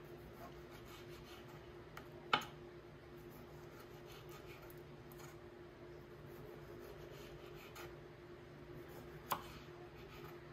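A knife slicing plums thinly on a cutting board: faint soft cuts and scrapes, with two sharper knocks, about two seconds in and near the end, over a steady faint hum.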